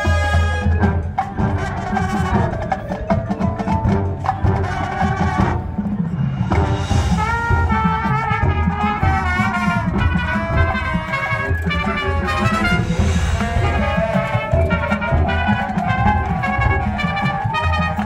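High school marching band playing: brass carrying a melody over drums and percussion.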